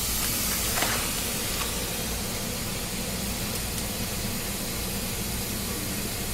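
Baking soda and citric acid bath bomb fizzing in water, a steady hiss, over the low hum of a room fan.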